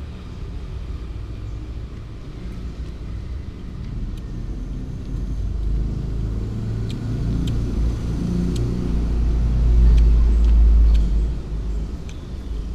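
Young tabby cat eating dry kibble close to the microphone: scattered sharp crunches over a heavy low rumble that swells about ten seconds in, then drops back.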